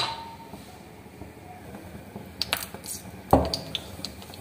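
Wooden spatula stirring milk that is thickening into khoya in a metal karahi, scraping and knocking against the pan. A few sharp knocks come a little over two seconds in and about three seconds in, the last the loudest, with lighter ticks after.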